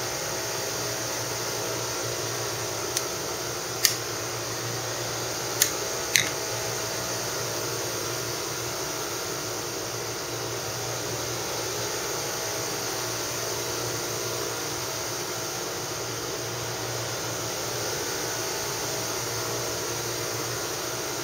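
Steady fan-like whir with a low hum underneath, and a few light clicks about four and six seconds in.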